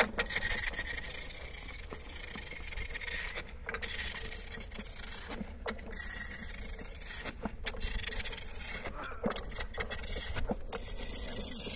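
Steady scraping hiss of an ice rower's skate runners and pole tips gliding over clear lake ice, with faint irregular clicks.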